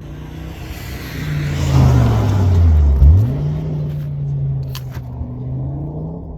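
Race car engine at the end of an eighth-mile acceleration run. Its pitch sinks, then jumps sharply back up about halfway through and holds steady.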